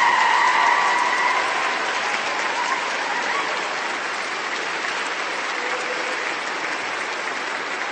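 Large crowd applauding, dense steady clapping that eases off slightly in loudness, with a held high note sounding over it in the first second and a half.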